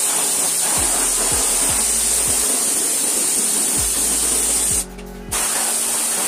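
Steady hiss of compressed air from an air nozzle on an orange pneumatic hose, cut off for about half a second roughly five seconds in, then starting again.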